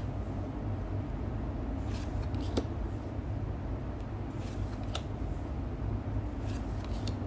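Magic: The Gathering trading cards being slid one behind another in the hands, giving a few soft, brief flicks spread over several seconds, over a steady low hum.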